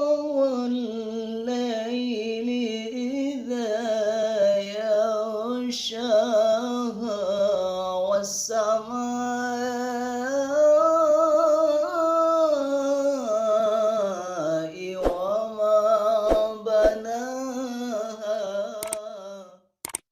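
Unaccompanied solo voice chanting Quran recitation in a melodic tilawah style, drawing out long melismatic phrases with wavering ornaments and no added echo or effects. The voice stops shortly before the end.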